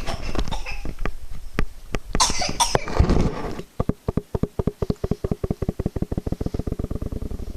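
A coughing fit: several harsh, irregular coughs, then from about halfway a rapid, even run of short pulses, about ten a second, that stops near the end.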